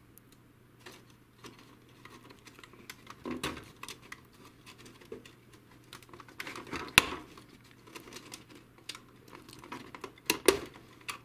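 Small plastic wire connectors being pulled out of a printer's main circuit board by hand: scattered light clicks and knocks, the sharpest about seven seconds in and again near the end.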